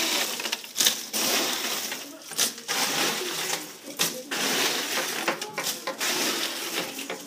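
Ice cubes clattering and knocking together as they are scooped from a cooler into a plastic gallon bag, in a series of irregular rattling knocks.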